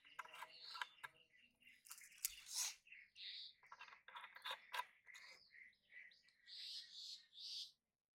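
Faint crackles and clicks from hands working close to the microphone while preparing snail bait, among plastic bottles, with birds chirping in the background. The sound cuts off suddenly near the end.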